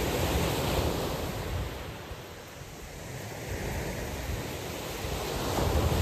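Small waves breaking on a shingle beach and washing back. One is breaking at the start, it eases off about two seconds in, and the next comes in near the end.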